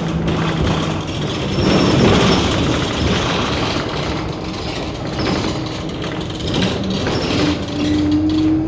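Inside a moving bus: the drivetrain running under a loud rattling and squeaking of the bus body and fittings. A steady whine sits underneath and rises slightly in pitch near the end.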